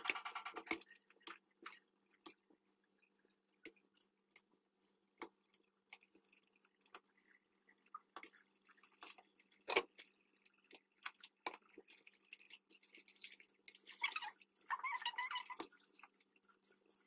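Soft wet squishing, scattered clicks and drips as boiled yufka sheets for su böreği are handled and laid into a metal tray. A cat meows at the very start, and a similar pitched call comes near the end. A faint steady hum runs underneath.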